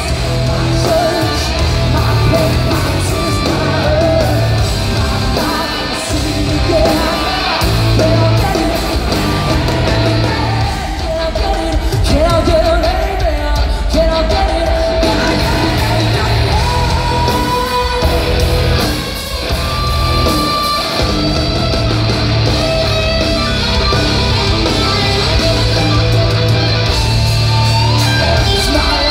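Hard rock band playing live through a large arena's sound system: distorted electric guitar, bass and pounding drums, with a woman singing at full voice over them.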